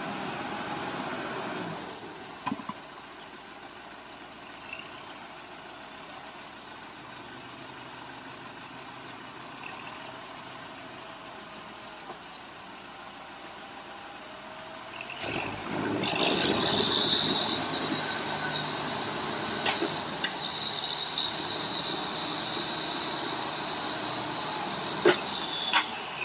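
Heavy machinery running with a steady rumble. About halfway through it grows louder, with a sustained high-pitched metallic squeal and a few sharp clicks near the end.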